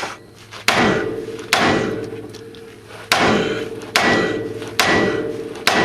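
Hammer striking metal, six blows about a second apart, each ringing out and fading before the next.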